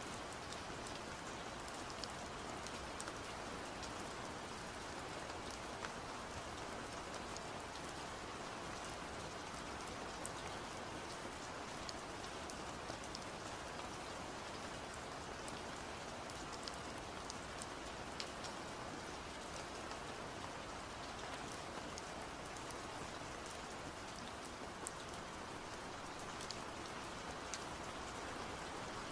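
Steady rain-like patter and hiss, even in level throughout, with scattered faint light ticks.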